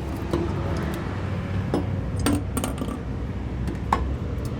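Metal motorcycle fork parts clinking as they are handled and pulled apart for cleaning: a handful of sharp, separate clinks over a low steady hum.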